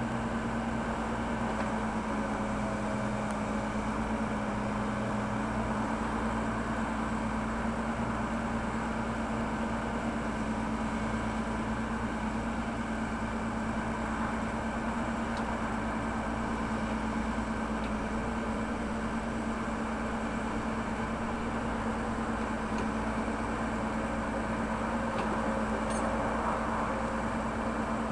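Backhoe loader's diesel engine running at a steady, even pitch.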